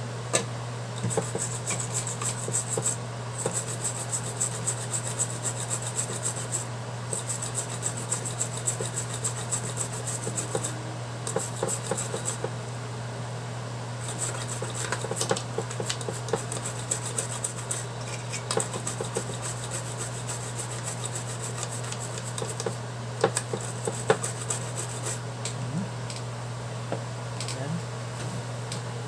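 Small brush scrubbing the circuit board of a car's engine control unit (ECU): rapid scratchy back-and-forth strokes in two long spells, with a pause of a second or two between them, over a steady low hum.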